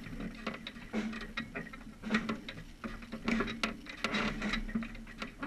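Irregular clicks, taps and knocks, one or two a second, from a procession throne being carried on its poles, with faint voices murmuring underneath.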